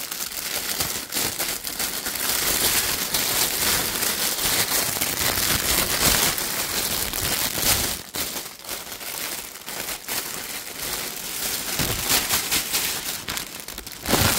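Clear plastic packaging bag crinkling and rustling as it is pulled open off a new bag, a dense crackly rustle that breaks into shorter spells about halfway through.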